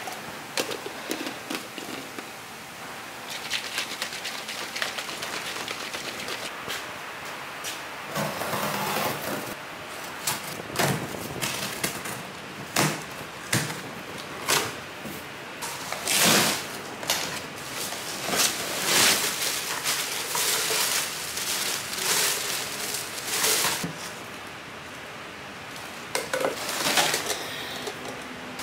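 A cardboard shipping box being opened and unpacked: irregular bursts of rustling and crinkling from cardboard flaps and packing paper, with items being handled, busier and louder in the second half.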